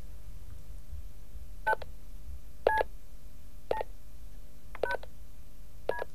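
Push-button telephone keypad tones: five short two-note beeps about a second apart as a number is dialed.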